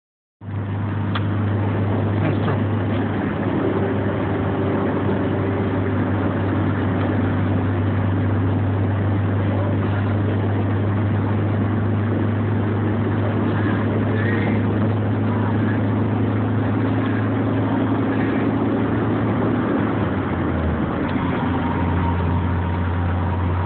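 Car cabin noise while driving at highway speed: a steady low engine drone with road and wind noise over it. The low drone wavers briefly about twenty seconds in.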